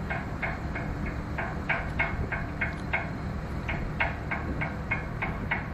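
Dockside machinery running with a steady low hum and a regular clicking of about three clicks a second.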